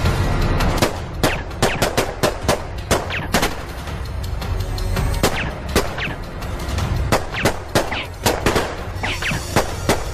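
Gunfire in a dramatised firefight: dozens of sharp shots from automatic weapons, irregular and in quick bursts, over a music score.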